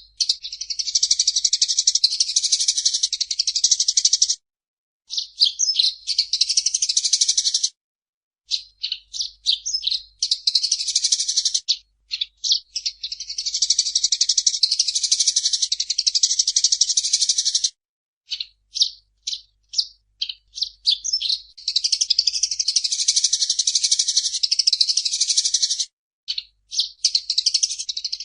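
Eurasian tree sparrow song: each phrase is a few quick chirps running into a fast, dense chattering trill of two to three seconds. The phrase repeats about six times, with short breaks between.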